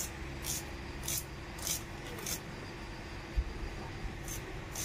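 A hand-held knife slicing pieces off a small onion, a short crisp stroke about every half second, with a pause in the middle. A single low thump about three and a half seconds in, over a faint steady hum.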